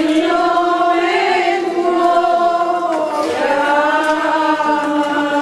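A group of women singing a slow processional hymn together while walking, with long held notes that slide gently from one to the next.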